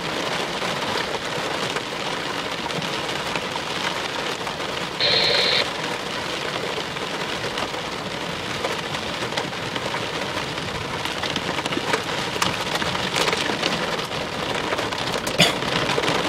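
Heavy thunderstorm rain pattering steadily on a vehicle, with a brief louder tone about five seconds in and a sharp tap near the end.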